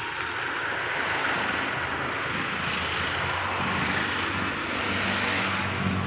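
Backhoe loader's Kirloskar diesel engine running steadily under a rushing noise, the low engine hum growing stronger in the second half.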